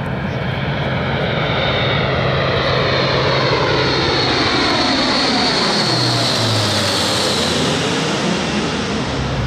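Airbus A400M's four TP400 turboprop engines and eight-bladed propellers in a low flyby: a loud, steady drone with a low propeller hum that drops in pitch about six seconds in as the aircraft passes overhead.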